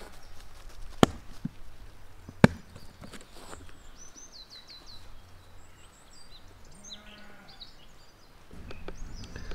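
Two sharp plastic snaps about a second and a half apart as the latches of a plastic hard case are flipped open, followed by lighter knocks of the case being handled. Small birds chirp, and a sheep bleats faintly about seven seconds in.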